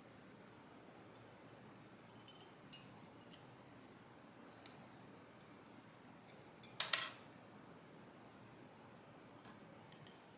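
Small metallic clicks and scrapes of tools working pins and springs out of a lock's chambers, with a louder brief clatter about seven seconds in.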